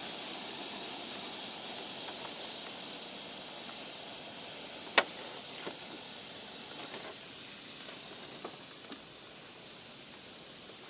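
Parts of an air-conditioner unit being pulled apart by hand: one sharp click about five seconds in and a few fainter clicks after, over a steady high hiss that slowly fades.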